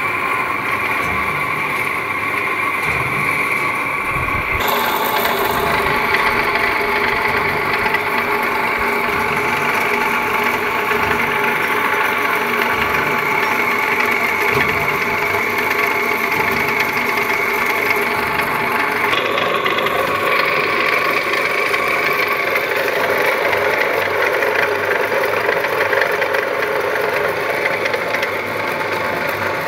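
Machinery of a mobile column potato steamer running: a steady, loud mechanical noise with a continuous whine, changing abruptly about four and a half and nineteen seconds in.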